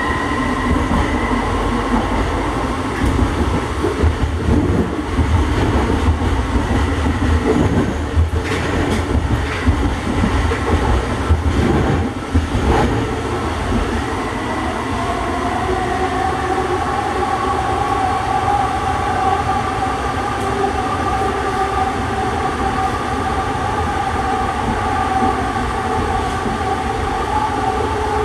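JFK AirTrain car (Bombardier ART Mark II) running along its elevated guideway, heard from inside: a steady rumble of wheels on rail with a few knocks near the middle. A steady whine comes in about halfway through and holds.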